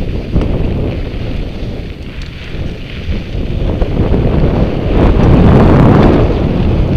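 Wind buffeting an action camera's microphone while moving fast down a rocky trail, over the rattle of a mountain bike and scattered sharp clicks of stones and gravel. The wind noise swells louder about five seconds in.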